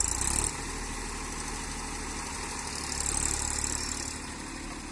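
Heavy diesel machinery engines running steadily as a bulldozer pulls a tractor stuck in a field, with two louder, hissing swells, one at the start and one about three seconds in.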